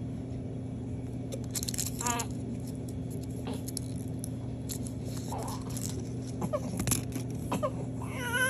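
A young baby fussing with a few brief high whimpers, building toward a cry near the end, over a steady low hum.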